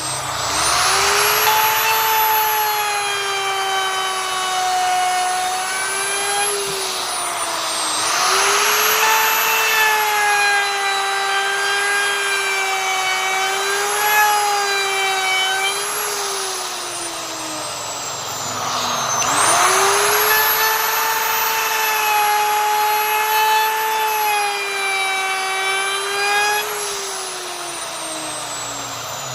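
Electric wood router spinning at high speed and cutting into wood, a high whine with a rasp of cutting noise each time the bit bites in, its pitch sagging under load. About two-thirds of the way in it slows and is brought back up to speed, and near the end it winds down.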